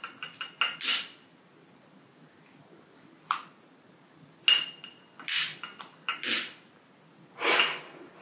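Long-reach butane utility lighter being clicked over and over, about ten sharp clicks in uneven groups, several followed by a short hiss, as it is held to a candle to light it.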